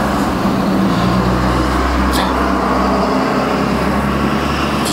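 A steady mechanical hum: a constant low drone with a level tone running through it, with one faint click about two seconds in.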